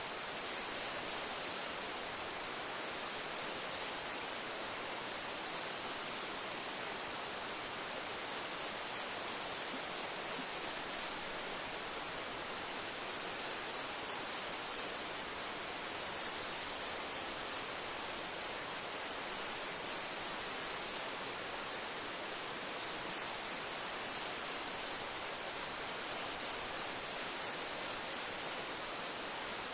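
Forest insects calling: one keeps up a steady, fast, even chirping at a middle-high pitch, while over it come repeated bursts of very high-pitched rapid pulsing, each lasting a second or two, over a soft even hiss.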